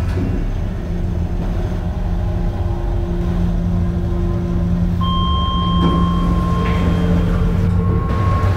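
A low, steady rumble with held, unchanging tones layered over it. Higher tones join about five seconds in, and another near the end.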